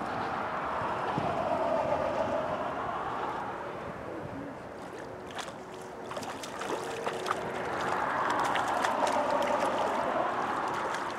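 Traffic crossing a bridge: tyre noise from passing vehicles swells and fades twice, with a few light clicks in the quieter stretch between them.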